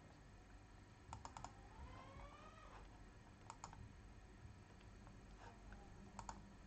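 Faint computer keyboard and mouse clicks in a near-silent room: a quick run of about four clicks a second in, two more midway and two near the end, with a faint rising hum between the first clicks and the middle pair.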